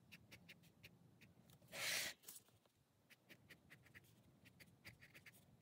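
Faint scratching of a fine-tip pen on sketchbook paper as short strokes are drawn, in quick small ticks. About two seconds in there is one brief, louder hiss.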